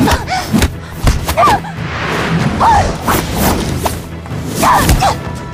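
Staged hand-to-hand fight sound effects: repeated punch and body-blow thuds with quick swishes of movement, and a few short grunts from the fighters, over a dramatic film score.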